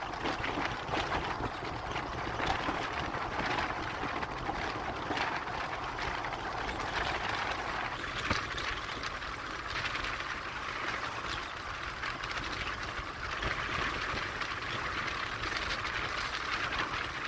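Steady road and engine noise of a vehicle being driven, heard as an even rushing hiss with no clear engine note.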